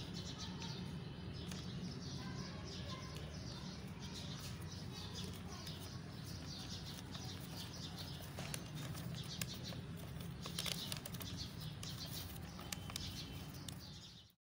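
Paper rustling and crinkling as a sheet is unfolded and handled, in many quick crisp crackles that are thickest about two-thirds of the way in, over a steady low hum.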